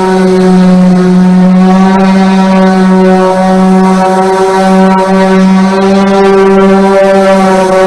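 Corded electric sander running steadily with a loud, even hum, rubbing down a fiberglass boat hull with 220-grit sandpaper to rough the surface for primer.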